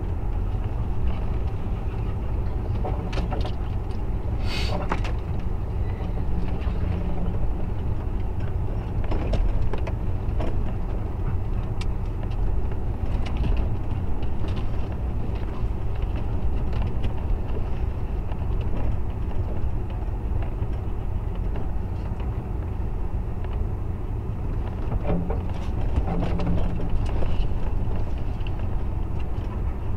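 Ford Raptor pickup crawling along a rough, narrow trail: a steady low engine and tyre rumble, with scattered brief scrapes and knocks of brush dragging along the truck's sides.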